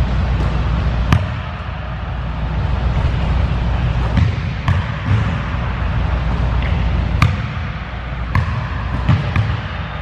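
Basketball knocking against the rim and bouncing on a hardwood gym floor, about six separate sharp knocks spread out, over a steady low rumble.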